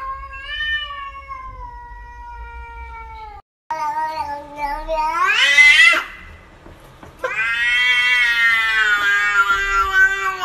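Domestic cats meowing in three long drawn-out calls. The first is steady, the second climbs sharply in pitch to a high yowl at its end, and the third is long and held.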